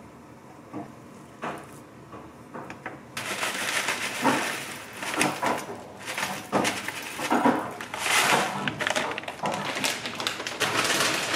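A metal spoon scraping and lightly tapping as yogurt goes into a glass dessert cup. Then, about three seconds in, a plastic snack bag crinkles and granola pours and clatters into the cup in a dense rustle full of small clicks.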